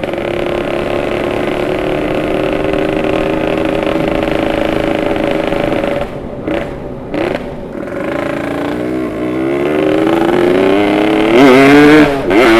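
Yamaha RX Special 115's two-stroke single-cylinder engine with the bike under way. The note holds steady at first, the throttle eases off around six seconds with a couple of short blips, then the engine pulls hard with a rising pitch to its loudest near the end.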